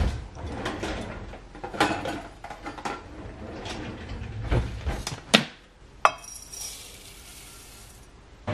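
Kitchen handling sounds on a granite countertop: a run of light clinks and knocks, with two sharp clacks a little past the middle. Then a soft steady hiss of dry rolled oats poured from a metal measuring cup into a ceramic mug.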